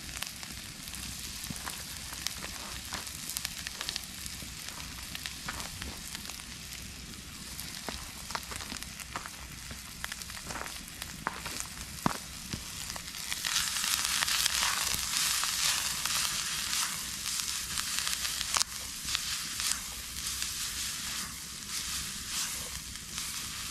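Onions and garlic sizzling in a frying pan over a wood campfire, a steady hiss with scattered sharp clicks and pops. The sizzling grows louder about halfway through and stays louder.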